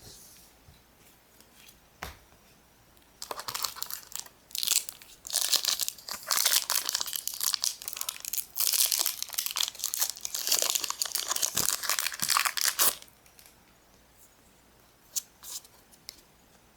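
Foil wrapper of a Pokémon trading-card booster pack being torn open and crinkled, from about three seconds in until about thirteen seconds in, followed by a few light clicks.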